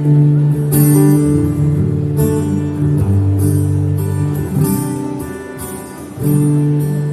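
Acoustic guitar strumming chords, with a new strum about every second or so and the chords changing as it goes.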